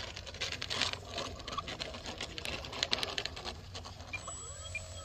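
Rapid, irregular clicking and crackling. About four seconds in, the electric motor of an E-flite Cessna RC plane begins to whine, rising and then slowly falling in pitch as it is throttled up to taxi.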